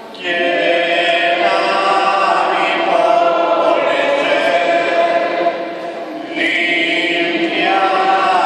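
Choir singing a liturgical hymn in long held phrases, echoing in a church dome. There is a short pause about two-thirds of the way through, then the next phrase begins.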